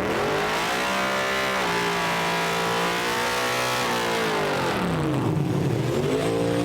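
Motor vehicle engine revving under acceleration. The pitch climbs over the first second and a half and holds, drops away about four to five seconds in, then climbs briefly again near the end.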